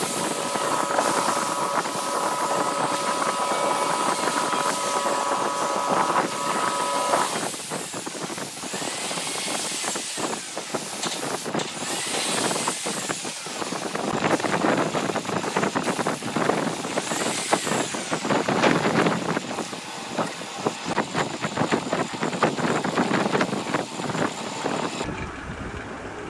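Wood lathe running while sandpaper is held against the spinning vase, giving a steady scratchy hiss. A steady motor whine sounds over the hiss for the first several seconds. Near the end the hiss drops away.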